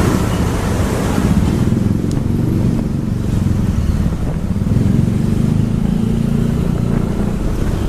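Steady engine and road noise of a moving vehicle on the road, a dense low rumble with a rushing noise over it.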